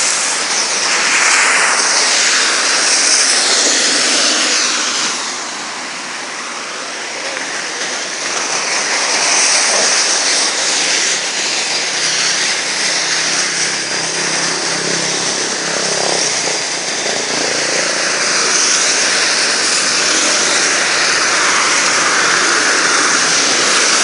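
Steady hiss of heavy rain pouring down on a flooded street, easing briefly about six seconds in.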